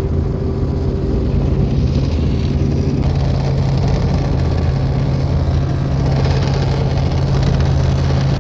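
Helicopter running: a loud, steady drone of engine and rotors with a low hum. A higher tone within it fades out about three seconds in.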